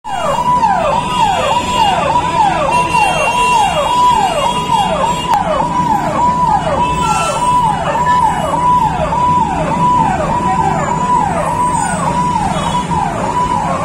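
Fire engine's electronic siren sounding without a break, each cycle a held high note that drops sharply, repeating about three times every two seconds.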